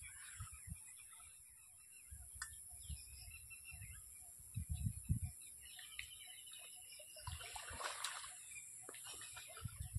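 Birds chirping, with a few dull low thumps around five seconds in and a splash of water about eight seconds in.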